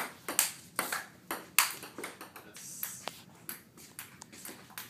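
Table tennis rally: the celluloid-style ball clicking sharply off paddles and table, an uneven run of hits roughly two a second.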